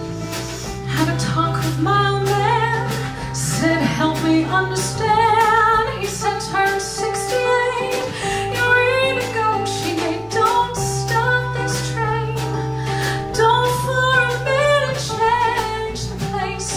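A woman singing live with a wavering vibrato over guitar accompaniment.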